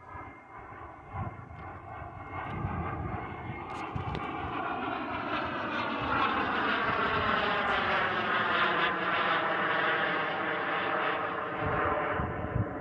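Harlock-RC Viper 250 model jet in flight, making a dense, many-toned whine that grows louder and climbs in pitch as it comes closer, easing slightly near the end.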